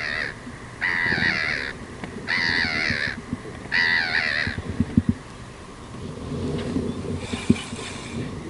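A bird calling in a series of drawn-out calls, each under a second long, about a second and a half apart through the first half. A few sharp knocks follow about five seconds in.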